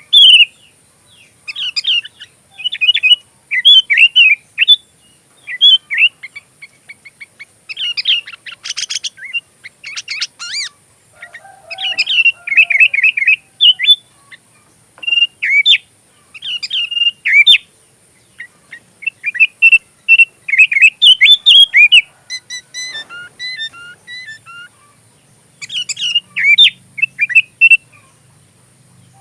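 Sooty-headed bulbul (kutilang) singing: loud, bubbly whistled phrases repeated again and again with short pauses between them. About nine seconds in there is a brief harsh, buzzy chatter, and later a quick run of short ticking notes.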